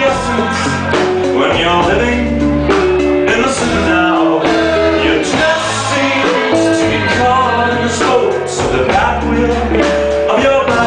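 Live band music with a man singing lead into the microphone and women singing backup, over a steady beat.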